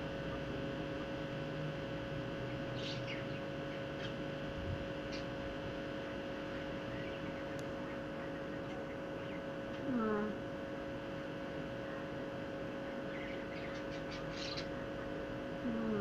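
A steady electrical hum, with faint rustles and clicks as a wet ringneck parakeet shakes and preens on a cloth towel. A short voice-like sound falling in pitch comes about ten seconds in and again at the end.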